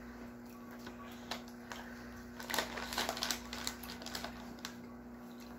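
Crisp potato chip bag crinkling and rustling as a hand digs in for chips, a quick flurry of crackles in the middle, over a faint steady hum.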